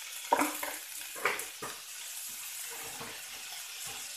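Fiddlehead ferns sizzling in a hot metal wok, with a metal spatula knocking and scraping against the wok twice in the first second and a half, then a smaller knock.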